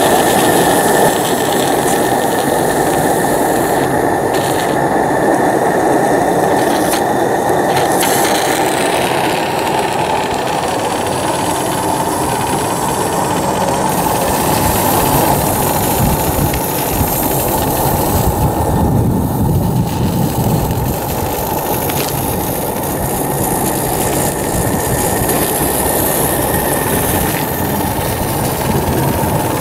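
Live-steam model truck's small steam engine running under way: a fast, steady chatter of exhaust beats with a steady high tone over it, growing fuller for a few seconds past the middle.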